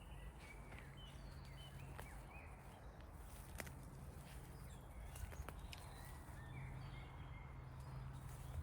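Faint garden ambience: small birds chirping now and then in short high notes, with a few sharp clicks and a steady low hum underneath.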